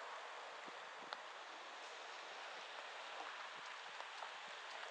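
Steady rain falling, an even hiss with scattered sharp ticks of individual drops; the sharpest tick comes about a second in.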